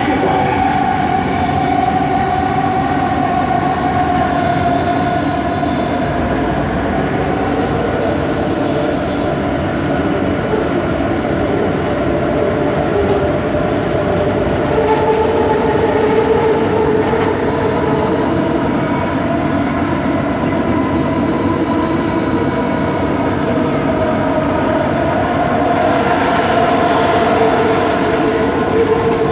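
Bombardier Innovia ART 200 metro train running, heard from inside the car: steady rolling rumble with an unusual whine from its linear induction motors. The whine drifts slightly lower early on, then rises in pitch about halfway through and again near the end.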